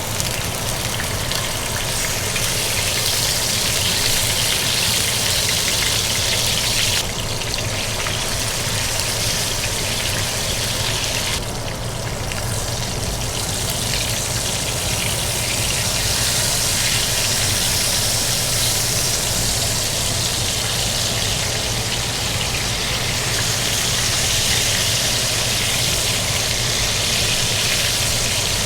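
Pompano frying in hot oil in a pan: a steady sizzle and crackle that dips briefly about seven and again about eleven seconds in.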